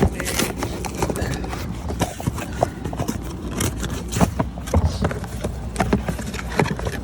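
Irregular clicks, knocks and scrapes of tools and parts being handled while working on a truck.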